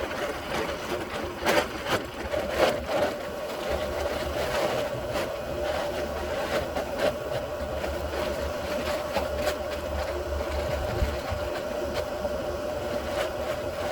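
Utility vehicle (a mule) running steadily as it drives, a constant motor hum with a low rumble and a few knocks and rattles in the first three seconds.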